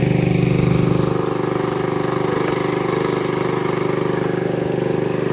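Boat engine running steadily under way, a rapid even pulse with a low hum; it eases a little about a second in.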